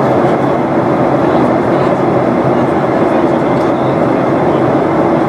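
Steady cabin noise inside a Boeing 737-800 in flight: the drone of its CFM56 turbofan engines blended with rushing airflow, level and unbroken.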